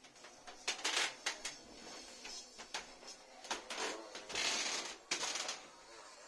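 A run of irregular light clicks and rustles, with a longer rustling noise between about four and five and a half seconds in.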